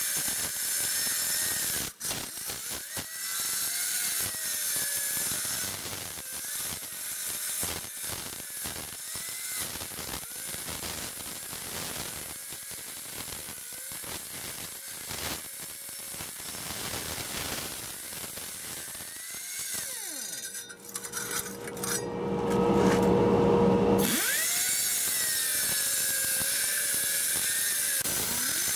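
Crack-cleaning tool's cutting wheel grinding a groove into a concrete block: a high motor whine that dips and rises in pitch with the load, over a gritty scraping. About 20 seconds in, a louder, lower hum takes over for a few seconds, then the whine runs on steadily.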